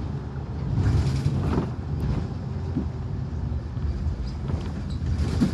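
Steady low rumble of a moving bus heard from inside the passenger cabin, with a few brief creaks.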